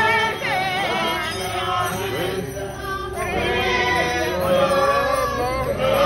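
Voices singing a hymn to music, with a bell jingling.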